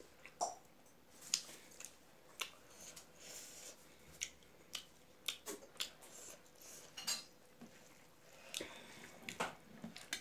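Hand mixing rice and curry on a steel plate: soft squishes of wet rice and light, irregular clicks of fingers against the metal.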